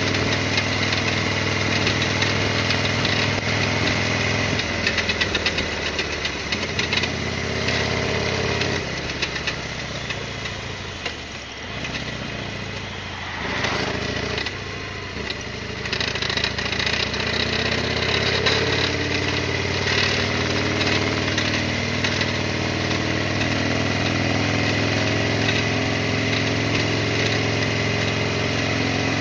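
Harley-Davidson Sportster XL1200R's 1200 cc air-cooled V-twin running while ridden, heard from the rider's helmet. The engine eases off about ten seconds in and picks up again around sixteen seconds.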